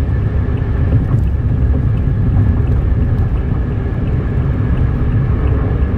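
Steady low rumble of a car driving on a wet highway, heard from inside the cabin.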